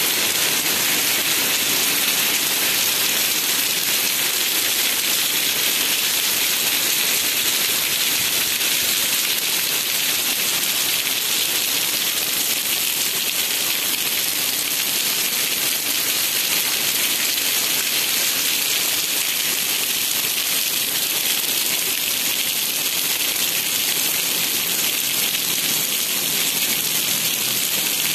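Steady rain falling on a wet cobblestone street and pavement: an even, unbroken hiss.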